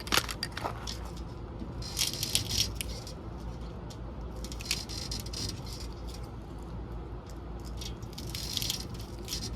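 Loose plastic parts of a broken camcorder rattling and clicking as it is handled, with scattered clicks and two clusters of rattling, about two seconds in and again near the end.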